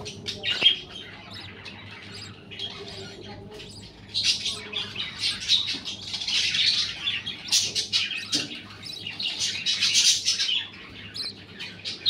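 Clearwing budgerigars chirping and squawking in the nest box. The calls are sparse at first, then become a dense, louder run of rapid high chirps from about four seconds in.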